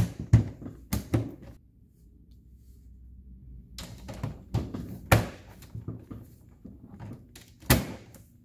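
Hollow plastic knocks and clicks as the large plastic floor panels of a Frozen 2 Ultimate Arendelle Castle playset are pressed and snapped down into their slots: a few in the first second, a busier run of them about four to six seconds in, and one louder knock near the end.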